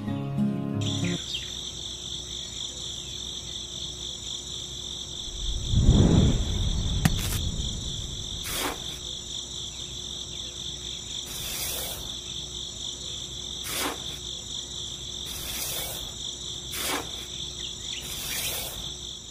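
Insects chirring in a steady, finely pulsing high trill. A low thump comes about six seconds in, and a handful of sharp clicks are scattered through.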